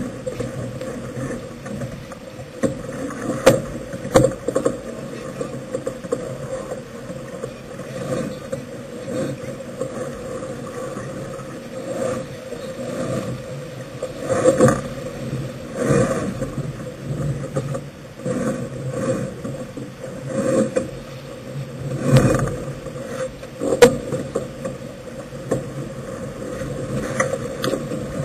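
Wind and water noise aboard a sailing yacht running under spinnaker, swelling in irregular surges.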